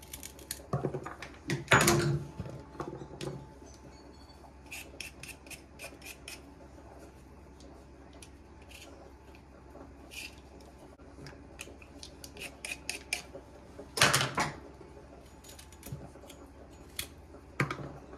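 Kitchen knife scraping and peeling a carrot held in the hand, in many short, quick strokes. A couple of louder knocks and clatters come about two seconds in and again near fourteen seconds.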